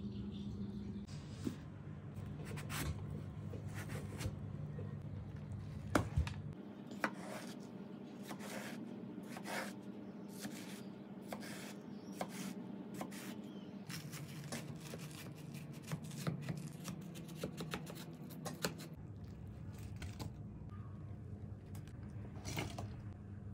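A chef's knife slicing through watermelon on a wooden cutting board: a long string of short cuts, crunches and knocks on the board, over a faint steady hum.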